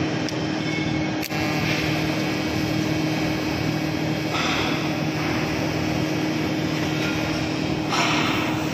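TIG welding on a steel pipe: a steady hum and hiss from the welding machine and the burning arc, with a short break and click a little over a second in.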